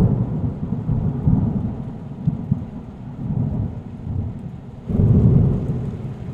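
Loud, low rumbling noise that rises and falls and swells again about five seconds in.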